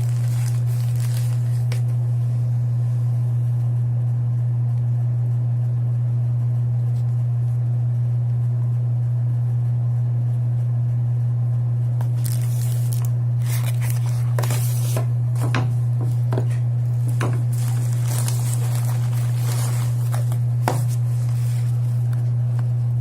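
A steady low hum, with packaging being handled over it: rustling, crinkling and scattered sharp clicks, mostly in the second half.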